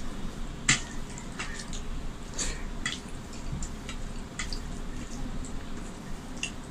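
Wet smacks and squishes of rice being mixed by hand on a steel plate and eaten with the fingers: scattered sharp, moist clicks, the loudest about a second in.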